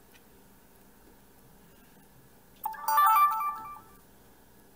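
Sony HDR-CX240 Handycam's power-on melody: a short electronic jingle of quick stepped beeps, about a second long, starting a little past halfway through, played as opening the LCD screen switches the camcorder on.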